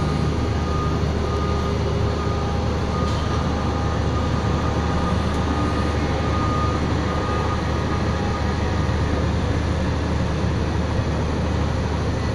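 An engine running steadily: a constant low drone with faint steady whines above it.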